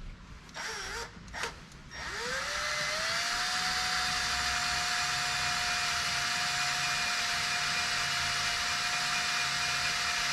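Power drill spinning up about two seconds in and then running at a steady speed, boring a pin hole through the steel crank hub into the crankshaft, before it stops near the end.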